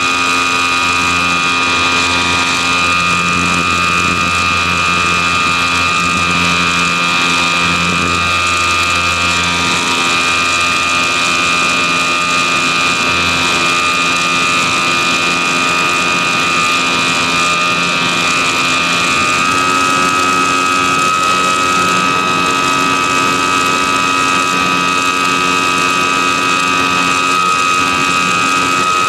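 Electric motor and propeller of an E-flite Apprentice S 15e RC airplane heard from onboard in flight: a loud, steady high whine, its pitch stepping up slightly about two-thirds of the way through as the throttle is nudged.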